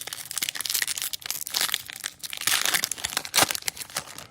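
Foil trading-card pack wrapper being torn open and crinkled by hand, a dense crackling and rustling with louder bursts about a second and a half in and near the end.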